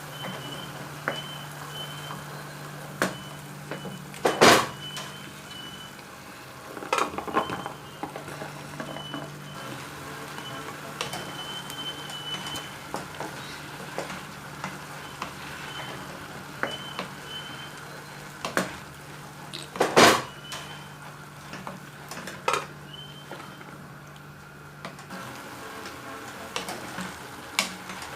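Cooking in a pot of tomato stew as boiled beans are stirred in: a steady sizzling simmer with scattered clinks and knocks of a spoon on the pot. The two loudest knocks come about 4 and 20 seconds in.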